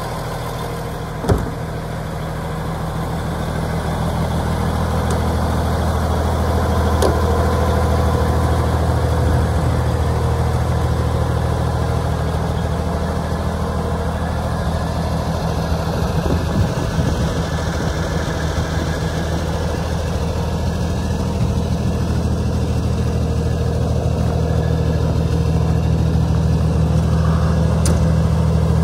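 2003 International 9400i Eagle truck tractor's diesel engine idling steadily, with a single sharp click about a second in.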